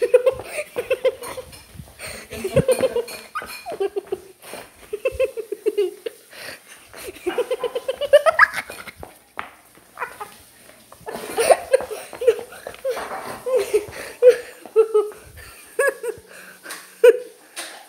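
A person laughing hard in repeated bouts of short, high-pitched "ha" pulses, rising into a squeal about eight seconds in.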